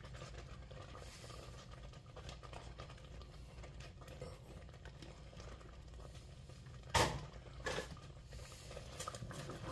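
Pieces of cooked chicken tipped from a plastic tub into a pot of thick, roux-based sauce, with faint soft patter and one sharp knock about seven seconds in, over a low steady hum.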